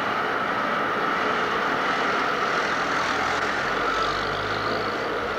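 Amsterdam GVB articulated tram moving slowly past on street track: a steady rolling rumble and whir. A lower hum joins about three and a half seconds in.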